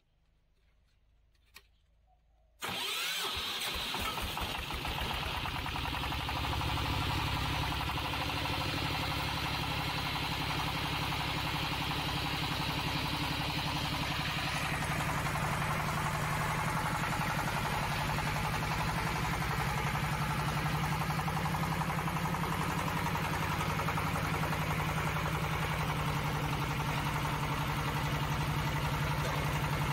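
Small single-cylinder diesel engine of a water well drilling rig starting: a faint click, then the engine catches suddenly about two and a half seconds in and settles into a steady run.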